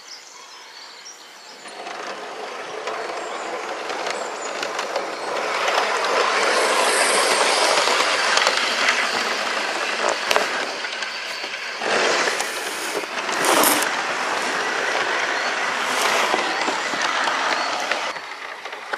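A model Class 158 diesel multiple unit running along garden railway track, making a steady rolling rumble of wheels and motor. The rumble swells about two seconds in and dies away near the end, with a few sharp clicks as it passes.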